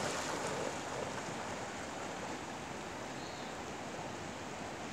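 Steady rush of a strong, fast-flowing river, a little louder in the first second and then even.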